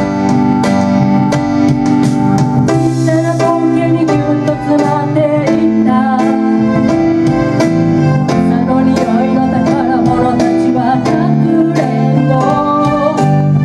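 Live band playing a pop song: two Roland Juno-G synthesizer keyboards and an electric bass, with a voice singing over them from about halfway through.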